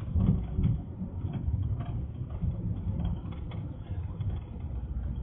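Low rumble of a moving marshrutka minibus heard from inside the cabin: engine and road noise with a few small rattles.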